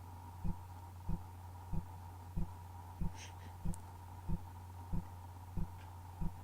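Regular soft low thump, about one and a half a second, over a steady low hum, with a short faint hiss about three seconds in.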